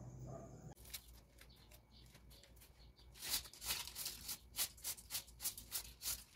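A broom sweeping a floor: a run of short brushing strokes, about three a second, starting about three seconds in.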